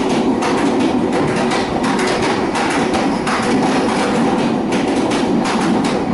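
Train running along the track: a steady rolling rumble with frequent, irregular clicks and clacks from the wheels on the rails.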